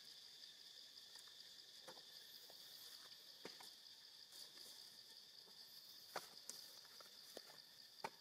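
Faint steady insect chorus, several high buzzing tones held without a break, with a few sharp clicks about two, three and a half, six and eight seconds in.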